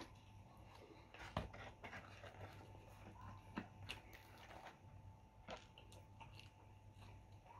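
Near silence with faint chewing and mouth sounds of people eating pizza, marked by a few small clicks over a low steady hum.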